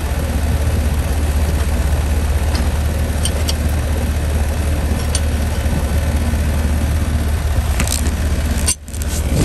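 ICP 3-ton R22 heat pump outdoor unit running: compressor and condenser fan make a steady low hum, freshly restarted on new capacitors, with a few light clicks. The sound drops out suddenly near the end.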